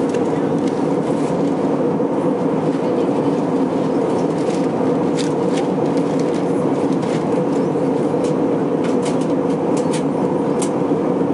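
Steady cabin drone of an Airbus A321-231 in flight: engine and airflow noise heard from a window seat, with a few faint clicks.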